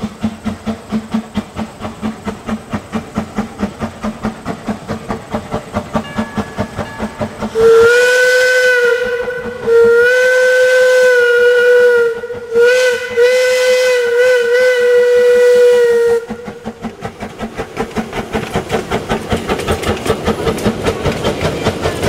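Small steam locomotive No. 242 working steadily, its exhaust chuffing about three beats a second. About a third of the way in, its steam whistle blows four blasts, long, long, short, long: the grade-crossing signal. The chuffing then resumes and grows louder as the train comes past.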